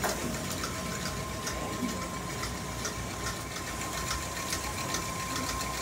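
Electric stand mixer running steadily, a constant motor hum and whine with light ticks and rattles from the beater in the steel bowl.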